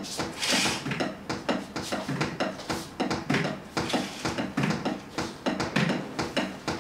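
Drumsticks striking the pads and cymbal pads of an electronic drum kit, heard unamplified as a quick, uneven run of clicks, taps and dull thuds, several strikes a second.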